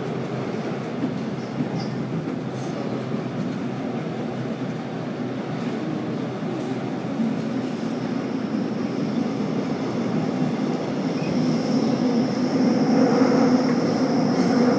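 Subway train heard from inside the car while running: a steady rumble of wheels on the track. About halfway through a thin high-pitched squeal joins in, and the whole gets louder near the end.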